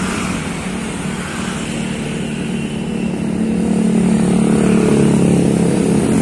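Motorcycle engines passing on the road, a steady hum that grows louder in the second half as a motorcycle rides by close.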